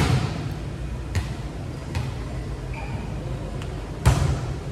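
Volleyballs smacking off hands and the court floor in a large echoing gym, a handful of sharp hits about a second apart, the loudest about four seconds in, over a low hall rumble.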